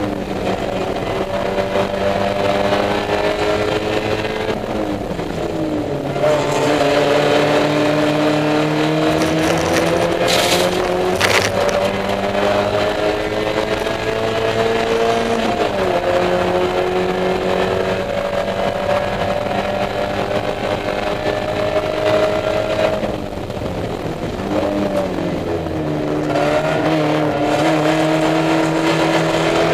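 Mazda Miata race car's four-cylinder engine under hard racing load, heard from inside the cabin. Its pitch climbs slowly, then drops sharply three times, about 5, 15 and 23 seconds in, as the driver brakes and downshifts for corners. Two short sharp knocks come about 10 and 11 seconds in.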